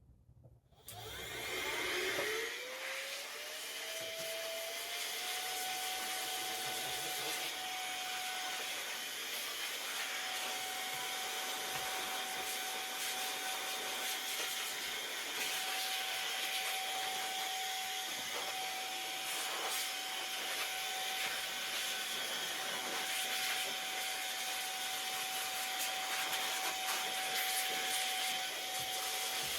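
A small electric dust-cleaning motor, a vacuum or electric blower, switches on about a second in and spins up with a rising whine. It then runs steadily with a rush of air while dust is cleaned out of a dirty desktop PC.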